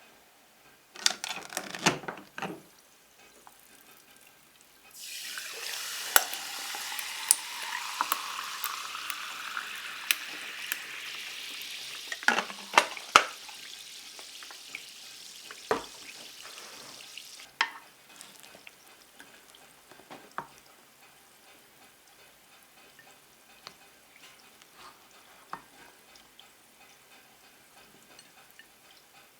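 Food sizzling in a hot frying pan: the sizzle starts suddenly about five seconds in and slowly dies down, with sharp utensil taps and clicks on top. A few knocks of cookware come just before it, and faint clicks follow after the sizzle stops.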